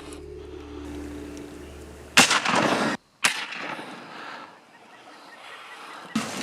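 Two sudden loud bangs about a second apart, the second fading away, over a low steady hum.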